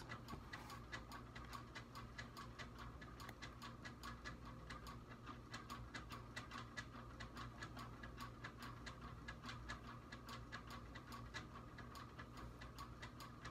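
Faint, steady ticking of a clock, with a low hum underneath.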